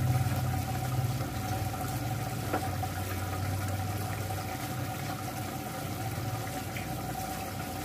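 Meat and potato curry bubbling in an aluminium pot on a gas stove, over a steady low hum.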